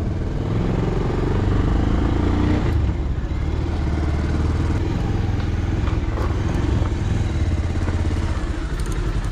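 Motorcycle engine running steadily as the bike is ridden, heard from the rider's position.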